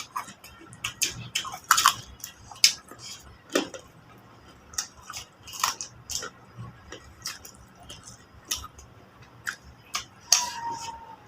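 Eating sounds: irregular clicks, smacks and crunches of people chewing and biting into chicken, spaced unevenly, sometimes several a second.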